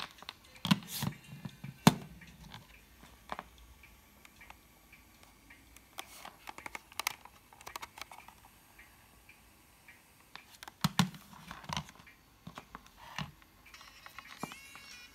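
Handling noises from a Philips AQ-6588 portable cassette player and its earphone cord: scattered plastic clicks and knocks as it is picked up, turned over and set down. The loudest knocks fall about a second in and again near the middle. Faint music from the player comes back near the end.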